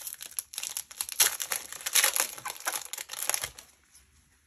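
Foil wrapper of a Magic: The Gathering booster pack crinkling and crackling as it is handled and torn open; it stops about three and a half seconds in.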